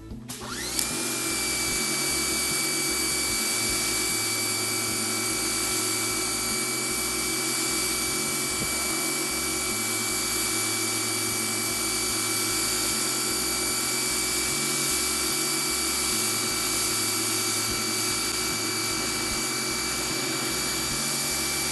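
Pressure washer starting up: the motor and pump whine rises for a moment about half a second in, then run steadily at full pressure while water hisses out through the wide 40-degree spray nozzle.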